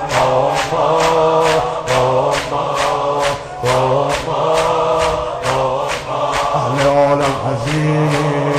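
Men chanting a Shia mourning lament (noha) in unison. Sharp, rhythmic chest-beating claps keep the beat at about two a second.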